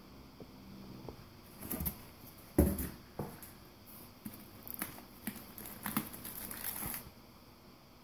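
Cardboard packaging being opened, with one dull thump about two and a half seconds in, then plastic wrapping crinkling and rustling as the wrapped contents are handled. The rustling stops about a second before the end.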